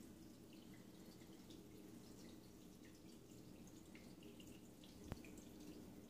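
Near silence: room tone with a low steady hum, faint scattered ticks, and one sharp click about five seconds in.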